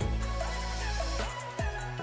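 Background music with a deep bass line and a beat; the lowest bass drops away near the end.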